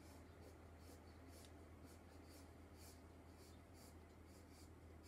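Graphite pencil shading on sketchbook paper: faint, quick scratchy strokes, about two or three a second, over a steady low hum.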